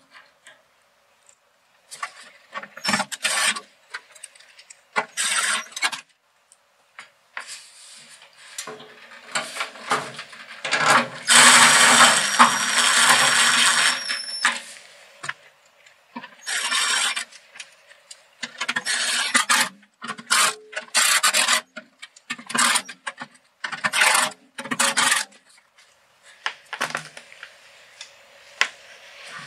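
Ryobi cordless driver running in short bursts, driving screws into the sheet-metal panel of the air filtration unit, with one longer, louder run about eleven seconds in that carries a steady high whine.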